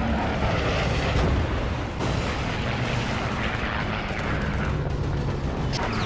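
Dramatised war-film sound of a WWII single-engine piston warplane in a steep dive: a steady, loud engine drone under dense rushing noise, with a few sharp reports of anti-aircraft fire near the end.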